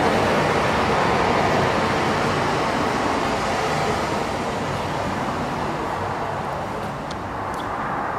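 Rushing sound of ocean surf played as the show's sound effect, a steady wash that slowly fades.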